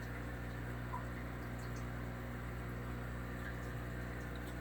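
Steady electrical hum with an even hiss of moving water: aquarium filtration equipment running.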